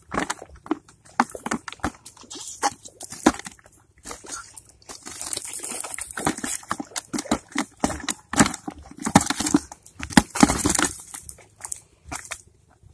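Live fish flapping as they are taken from a cast net: irregular wet slaps and knocks against the net, the grass and the bucket, mixed with the rustle of the net mesh being handled.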